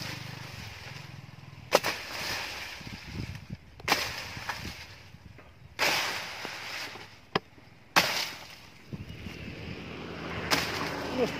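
A long-handled knife forged from a chainsaw bar chopping into dense brush and vines, about six strokes roughly every two seconds. Each is a sharp chop followed by a rush of rustling leaves and snapping stems.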